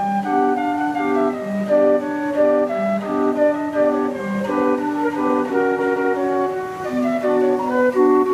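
Homemade automated pipe organ with white plastic pipes playing a tune: a melody over held chords, with new notes coming in about every half second.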